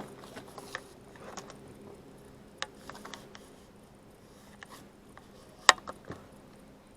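Scattered clicks and knocks of fishing gear being handled aboard a boat, over a faint steady hum. The loudest is a single sharp click near the end.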